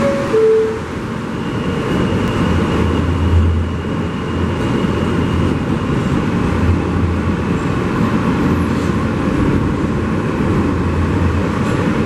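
New York City subway car (an R160-type car) running through a tunnel, heard from inside: a steady rumble and rattle of the wheels on the track, with a faint high steady whine for several seconds and a brief tone about half a second in.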